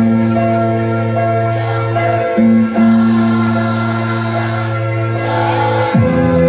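Music from a school choir performance: held chords that change twice, with choir singing.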